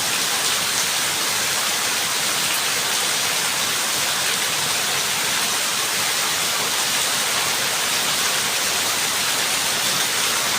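Steady heavy rain: a dense, even hiss with no single drops standing out.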